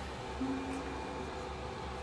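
Faint background music, a few soft low notes over a steady low hum.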